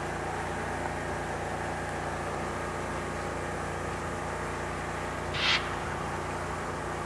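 A CN GE C40-8 diesel locomotive, the rear distributed-power unit, runs with a steady engine drone as the freight train pulls away. About five seconds in there is one brief hiss.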